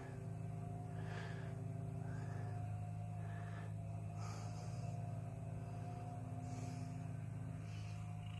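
A 13-year-old cat purring steadily at close range while being petted, a continuous low rumble with soft breaths now and then.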